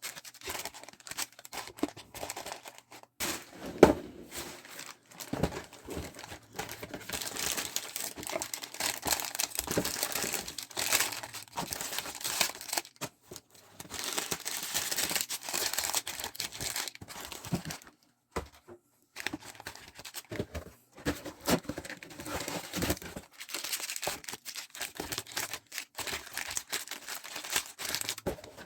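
Plastic packaging crinkling and tearing as items are unwrapped and handled, with scattered small clicks and a sharp knock about four seconds in.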